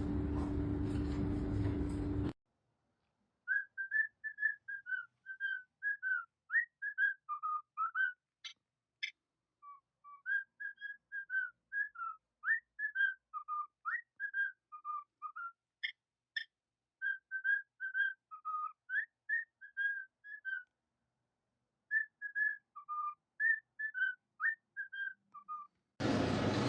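A long run of whistling: quick, short chirpy notes gliding up and down in phrases with brief pauses, over dead silence. It begins a couple of seconds in, after a steady hum cuts off abruptly, and the background noise returns near the end.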